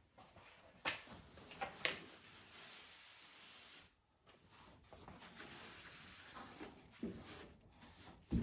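Faint rubbing and handling noises on metal bodywork, with a couple of sharp knocks about one and two seconds in.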